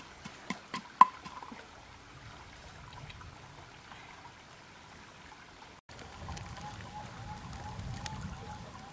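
A wooden pestle knocks in a wooden mortar a few times in the first second, one strike much louder than the rest. Then comes the low, steady rush of flowing river water, with a faint chirp repeating about three times a second over the last few seconds.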